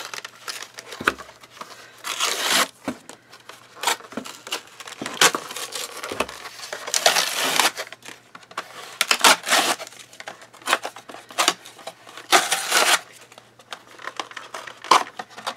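Cardboard-and-plastic packaging of a cutting ruler being handled and opened: several bursts of rustling, with scattered clicks and knocks in between.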